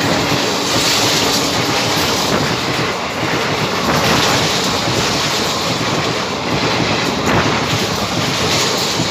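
An Indian Railways express train, the Gomti Nagar Express, passing at speed on the next track: a loud, steady rush of its coaches' wheels on the rails, with clickety-clack over the rail joints.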